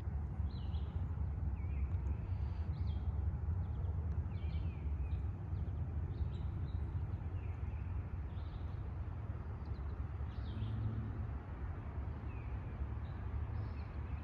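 Wild birds calling: short chirps and whistles, some falling in pitch, repeated throughout over a steady low rumble.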